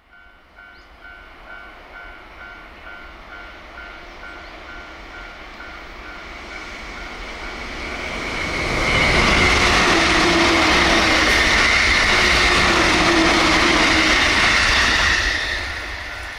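JR East E531 series ten-car electric train in red livery passing at full line speed, about 128 km/h. It grows louder as it approaches, is loudest as it rushes past from about nine to fifteen seconds in, then falls away. A level-crossing warning bell rings about twice a second at the start, is drowned out by the train, and is heard again near the end.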